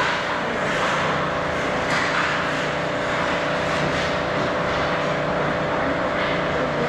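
Ice hockey rink ambience: a steady hiss of skates scraping and gliding on the ice over a constant hum in the arena.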